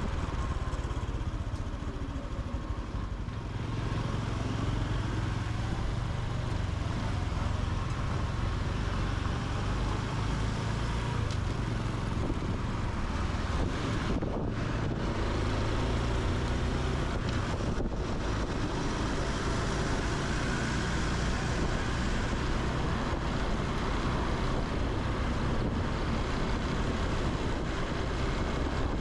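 Honda Super Cub C125's single-cylinder engine and exhaust running while riding, its pitch rising and falling as the speed changes.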